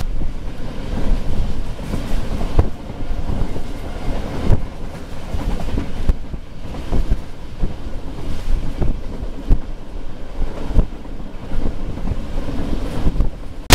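Passenger train coach running at speed: a steady low rumble with sharp wheel knocks over rail joints at uneven spacing. Wind buffets the microphone through the open window.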